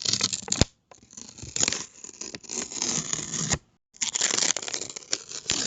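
Paper being torn in three rips: a short one that ends with a sharp snap under a second in, a longer, uneven rip lasting almost three seconds, then another starting about four seconds in.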